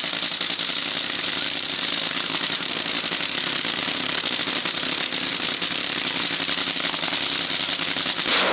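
Loud engine running steadily with a fast, even rattle, starting abruptly.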